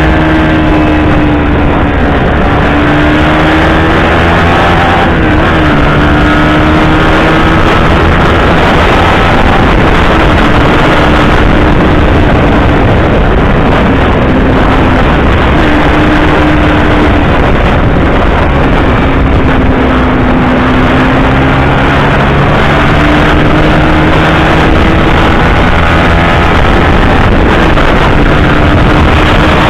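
Honda Winner X's 150 cc single-cylinder engine running hard at high revs on a full-throttle top-speed run, its pitch drifting slightly up and down, with wind rushing over the microphone.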